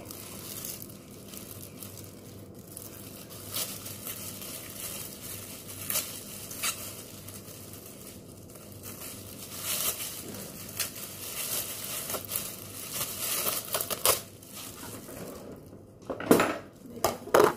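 Thin plastic disposable gloves and a plastic bag crinkling and rustling as gloved hands rub and handle a raw whole chicken, with small clicks throughout. The crinkling gets louder near the end, with a few sharp knocks.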